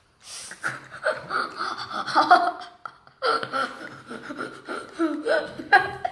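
Young boys giggling and laughing breathlessly with gasps, in two long fits with a short break about halfway through.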